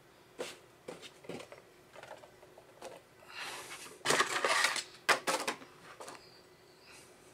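Clear plastic packaging insert from a Funko Pop box being handled: light plastic clicks and taps, then a loud crinkling rustle about four to five seconds in, followed by two sharp clicks.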